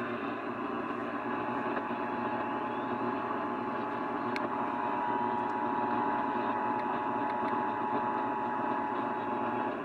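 Emergency Alert System two-tone attention signal received over distant AM radio: a steady tone that starts about a second in and cuts off near the end, heard through constant static and hiss.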